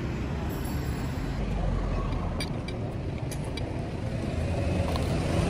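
Steady rumble of road traffic heard from an outdoor street-side table, with a few light clicks in the middle.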